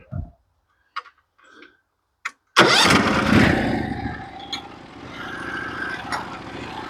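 Norwood HD36 portable sawmill's engine starting about two and a half seconds in, after a few small clicks, loud at first and then settling to a steady run.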